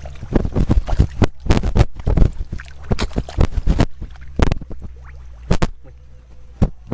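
Irregular splashing and sloshing of water in quick, uneven strokes, from hands working in shallow water to catch fish, with a low steady hum that stops about two seconds in.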